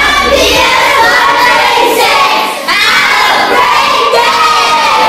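A group of children calling out together, loud and in unison, in two phrases with a brief break about two and a half seconds in.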